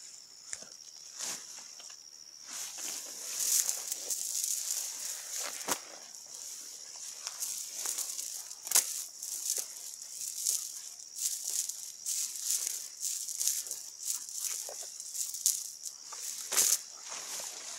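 High-pitched steady chirring of insects, with scattered rustles and clicks over it.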